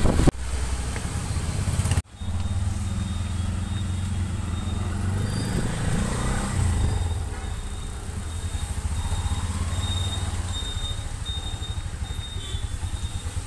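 Auto-rickshaw engine running steadily, heard from inside the open passenger cabin, with road and traffic noise around it. The sound cuts out briefly about two seconds in.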